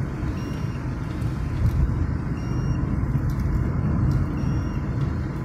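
Car moving along a wet road, heard from inside the cabin: a steady low rumble of engine and tyres. A faint short beep repeats about every two seconds.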